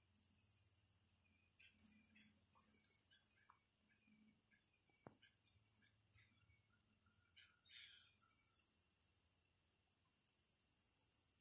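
Faint outdoor ambience of crickets trilling steadily, with scattered short bird chirps and one louder high chirp about two seconds in.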